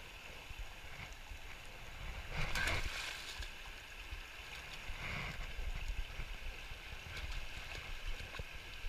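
Vermilion River's current rushing steadily past the bank, with two louder swells of noise about two and a half and five seconds in.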